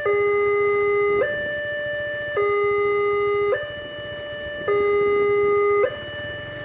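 Railway level crossing warning siren sounding a steady two-tone alarm, alternating a low and a high note about every second, the low note louder; it signals that a train is approaching the crossing.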